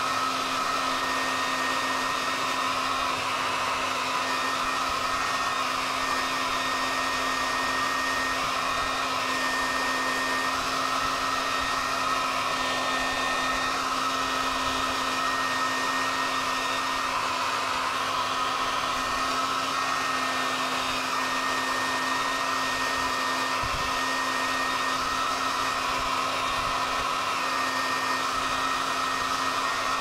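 Handheld hair dryer running steadily and blowing hot air, with a steady motor hum under the constant rush of air.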